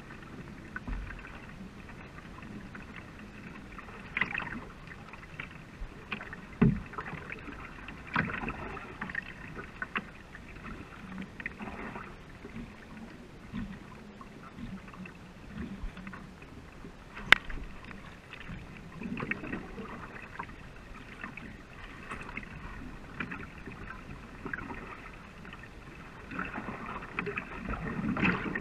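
Racing canoe under paddle: blades dipping and splashing with each stroke and water running along the hull. A few sharp knocks break in, the loudest a little past the middle.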